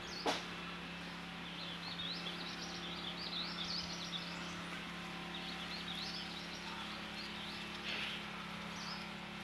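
Birds chirping in quick runs of high notes, over a steady low hum, with one sharp click just after the start.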